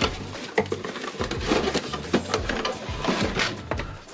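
A toy's cardboard box and packaging being opened by hand: rustling, scraping and a quick series of clicks and taps.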